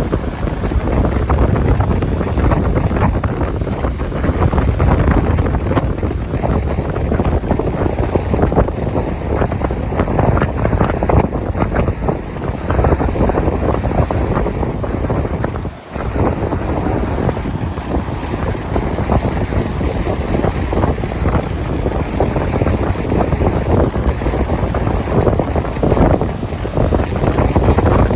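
Sea waves washing, with heavy wind buffeting the microphone, steady and loud throughout except for a brief dip about halfway through.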